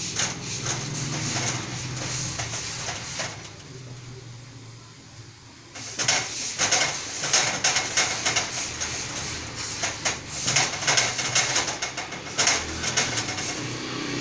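Gravity-feed steam irons hissing in short repeated bursts of steam during pressing, sparse at first, with a lull, then coming thick and fast from about six seconds in.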